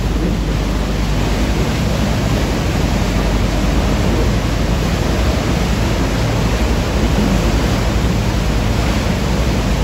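A motor tour boat under way: a steady rushing noise of wind and water over a low, even hum of the engine.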